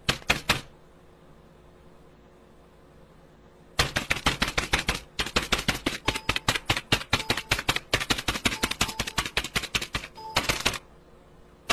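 A rapid, uneven run of sharp clicks, several a second, in the manner of typing. A short cluster comes at the very start, then the run starts about four seconds in, with a brief pause near five seconds, and stops shortly before the end.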